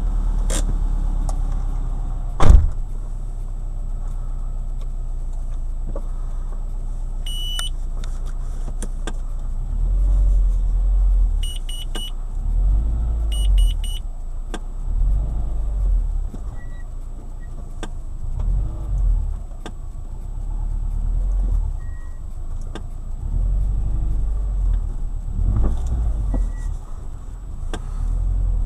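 Subaru Forester driving over bumpy road, with a steady low rumble of road and engine, a sharp loud knock about two and a half seconds in and repeated low thuds later on. The knock comes from the front right suspension on every bump; its cause has not been found. A few groups of short electronic beeps sound now and then.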